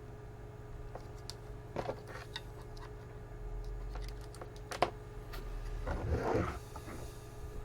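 Scattered clicks and knocks of small parts and leads being handled on a workbench, one sharp click the loudest, then a short rustle near the end, over a steady low electrical hum.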